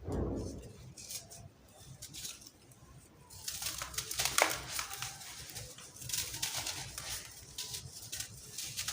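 Dry sand-cement crumbling and crunching: a soft thump at the start, a quieter stretch with a few small crackles, then dense crackling crunches from about three and a half seconds in.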